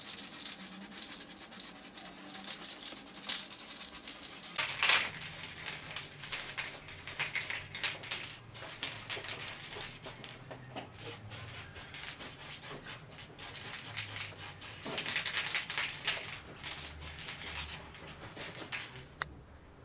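Aerosol spray paint can hissing in repeated short bursts while paint is sprayed along a motorcycle exhaust pipe. There is a sharp burst about five seconds in and a longer run of spraying around a quarter of a minute in.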